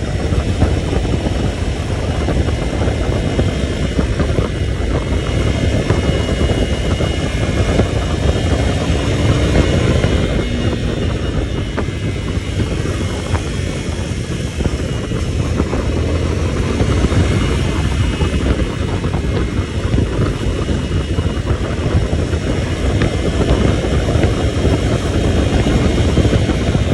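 A vehicle under way on a rough, nearly off-road track: a steady engine and road rumble with a heavy, fluttering low buffeting, like wind hitting the microphone.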